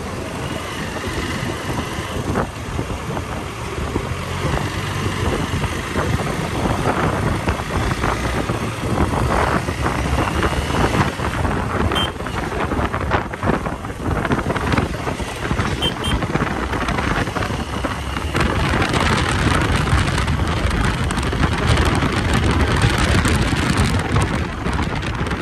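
Steady rushing noise of a moving vehicle, with wind buffeting the microphone.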